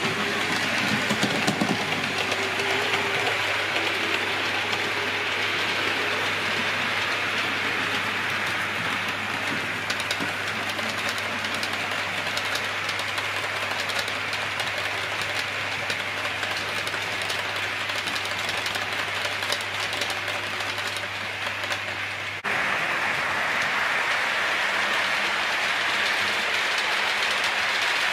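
OO gauge model train, an EFE Southern Electric 'Booster' electric locomotive hauling green coaches, running along the layout track. A steady motor and wheel rumble carries fine rapid clicking of wheels over the rail joints. A low hum stops at an abrupt cut about three-quarters of the way through.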